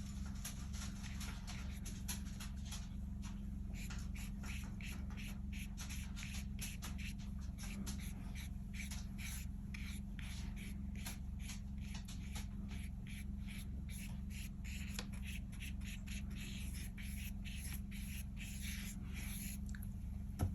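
Paintbrush strokes brushing and scratching across watercolour paper, many quick strokes in a row, over a steady low hum.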